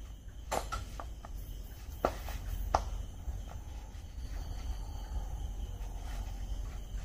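Several sharp knocks or clicks in the first three seconds, the loudest two about two and three seconds in, over a steady trill of night insects and a low hum.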